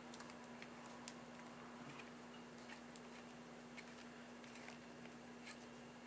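Faint, irregular small plastic clicks and ticks as the battery-powered illuminating wand's handle cap is twisted on over its AAA batteries, over a steady low hum.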